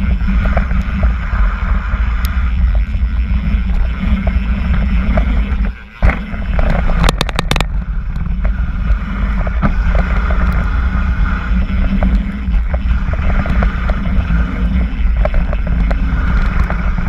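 Mountain bike rolling fast down a dirt and gravel flow trail, heard from a seatpost-mounted action camera: continuous rumble and rattle of the tyres and bike over the ground, with wind on the microphone. About six seconds in the noise drops out for a moment, then a sharp thump as the bike lands from a jump, followed a second later by a short burst of clattering.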